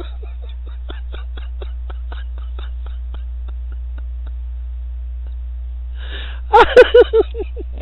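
A person laughing over a voice-chat line, the laughter trailing off over the first few seconds, then a short loud burst of laughter near the end, all over a steady low electrical hum.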